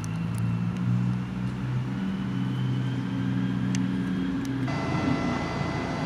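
Low, steady engine-like hum of background traffic, with a couple of faint clicks. About three-quarters of the way through it cuts abruptly to a thinner background with faint steady high tones.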